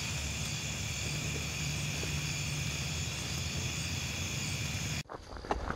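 Steady insect chorus in a grassy field, several high buzzing tones held without a break over a low hum. About five seconds in it cuts off suddenly and footsteps begin crunching through dry brush.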